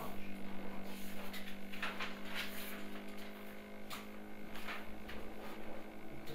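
A steady electrical hum, with a few brief faint hissing sounds over it.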